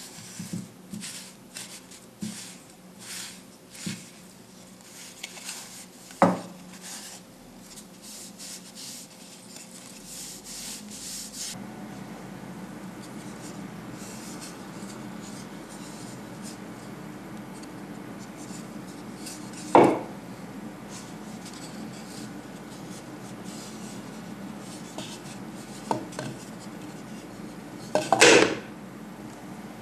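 Cloth rag rubbing over a turned walnut-root wooden cup in quick wiping strokes, with a sharp knock about six seconds in. After that the cup is handled with no more rubbing, and a few loud knocks of wood on the tabletop come late, the loudest near the end.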